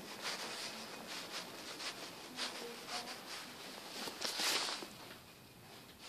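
Footsteps and rustling of a handheld camera as someone walks, about two steps a second, with a louder rustle about four seconds in; the steps stop about five seconds in.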